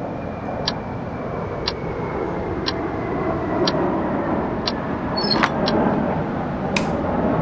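Steady road-traffic rumble with a short, high tick repeating evenly about once a second, and a sharp click near the end.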